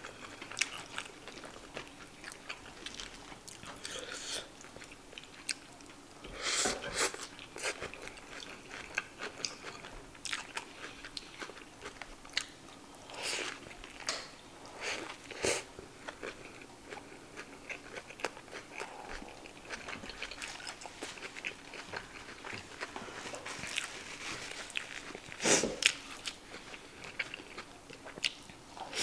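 Close-miked eating sounds of biting into and chewing a cheeseburger: irregular crunching and wet chewing clicks, with a few louder bites, the loudest near the end.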